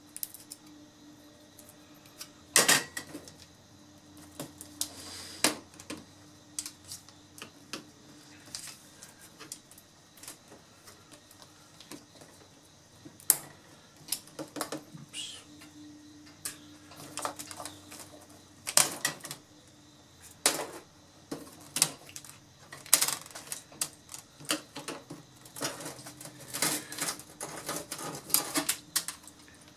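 Irregular clicks, taps and light clatter of hand tools and small parts while an LCD monitor is taken apart for scrap. A screwdriver works on a small circuit board, wire connectors are pulled, and a tool meets the monitor's sheet-steel panel frame. A few sharper clicks stand out, and the clicking grows busier in the second half.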